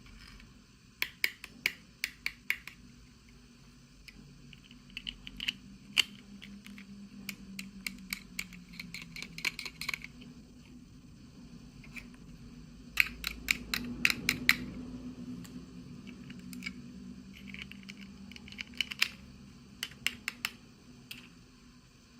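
Small plastic toy parts and packaging handled up close: clusters of sharp clicks and taps with crinkly rustling, in bursts that come and go.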